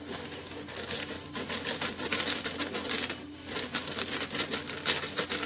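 Dry biscuit ingredients (flour, baking soda and salt) being sifted through a metal sieve into a bowl: a loud, fast rasping rattle, with a short break a little past three seconds in.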